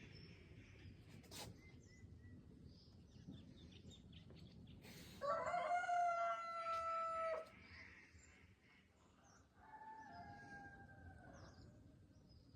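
A rooster crowing: one loud, long crow about five seconds in, and a fainter, higher crow a few seconds later. Faint small-bird chirps are scattered around it.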